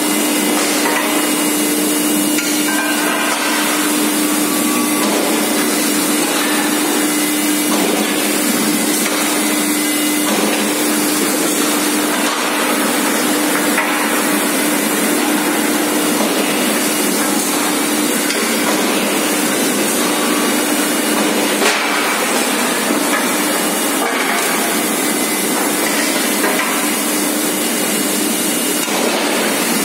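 Hot ring rolling machine and forging line running: loud, steady machine noise with a constant hum, broken by a few metal knocks, one louder a little past the middle.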